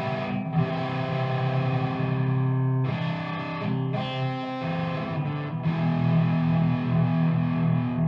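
Background music: distorted electric guitar playing chords, with bass.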